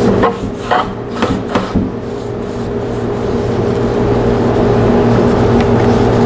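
Bristle paint brush dragging wet stain finish across bare oak boards, several short scratchy strokes in the first two seconds, then softer brushing. A steady low hum runs underneath.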